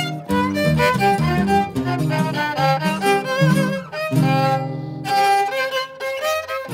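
Instrumental music: a violin playing a melody over lower bowed string notes.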